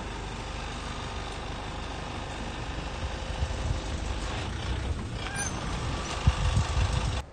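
Steady low rumble of a running engine or motor with hiss, growing rougher and a little louder in the second half, then cutting off abruptly near the end.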